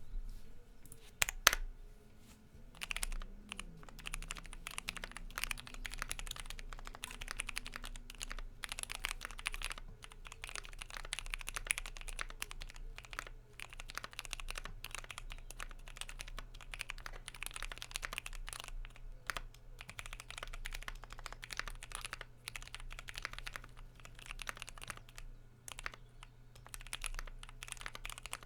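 Typing on a DZ60RGB V2 60% mechanical keyboard with Kailh Pro Purple tactile switches: a fast, irregular run of keystroke clacks, with two sharper, louder clacks about a second in before the steady typing begins.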